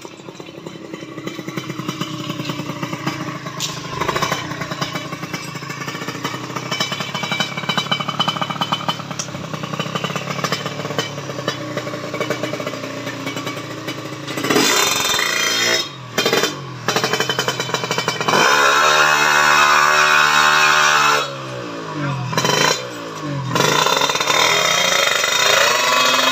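Tuned Kawasaki Ninja motorcycle engine running at low revs, then revved hard from about halfway in. Sharp throttle blips fall off suddenly, a high rev is held with its pitch swinging up and down about two-thirds in, and a few more blips come near the end.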